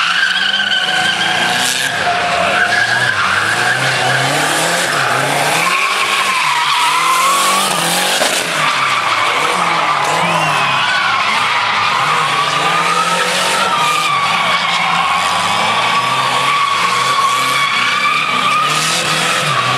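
Tuned Chevrolet Chevette engines revving hard, rising and falling, while the rear tyres squeal and screech without a break as the car slides and spins its wheels in a burnout.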